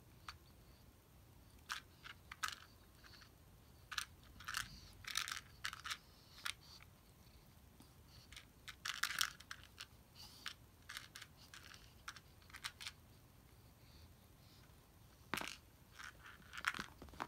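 Scattered light rustles, scrapes and taps as a young tabby cat bats at a string toy and scrambles on tatami mats. They come in irregular clusters, with the loudest flurry about nine seconds in and another near the end.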